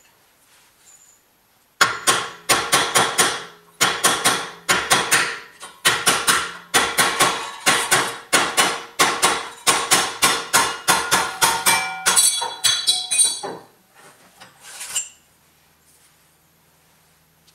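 Ball-peen hammer striking a thin steel sheet held in a bench vise, bending it over the jaws: a fast run of ringing metal blows, about three a second, in short runs with brief pauses. The blows stop well before the end, and one lighter knock follows.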